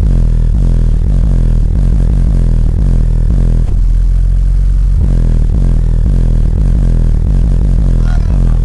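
Two 12-inch Ground Zero subwoofers playing bass-heavy music very loud, the deep bass notes stepping through a repeating pattern. A sung voice comes in near the end.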